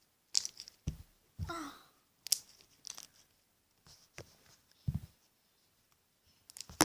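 Runny homemade slime being stretched and squished in the hands, giving scattered sticky clicks and crackles with a few soft thumps, and one sharp click near the end.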